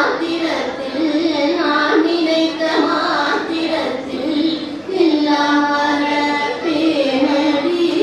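A small group of women singing a devotional song together in phrases, accompanied by a hand-pumped box harmonium.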